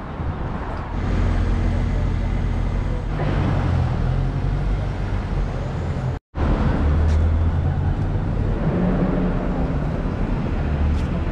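City street traffic: a steady low rumble of vehicle engines and road noise, which breaks off for an instant about six seconds in.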